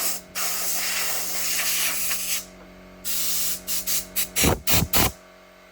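Aerosol spray can hissing in two long sprays, then a quick run of short squirts that stop about five seconds in.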